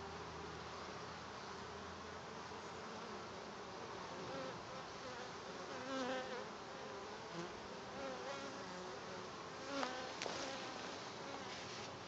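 Honey bees buzzing as they fly in and out of a hive entrance, single bees passing close with a wavering hum, loudest about six and ten seconds in.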